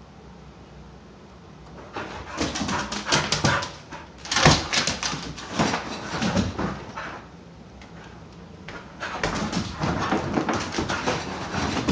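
Dog whimpering and yipping in excitement at being shown his brush, in three spells of rapid noises with short lulls between them.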